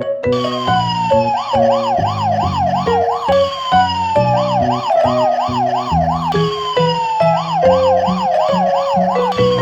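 Warbling siren: a falling tone, then fast up-and-down sweeps, repeating about every three seconds over a bouncy music track with a steady bass line.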